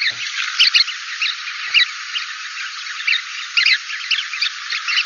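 Field recording of a winter flock of chestnut-collared longspurs calling, many short, high 'keetle' contact calls overlapping over a steady hiss. The recording is filtered to a narrow band, so it sounds thin, with no low end.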